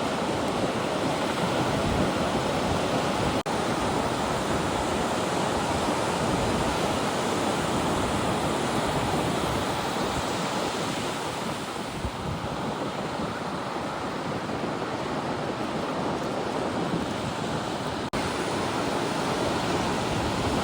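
Ocean surf: a steady rush of breaking waves, with wind buffeting the microphone. The sound drops out briefly twice.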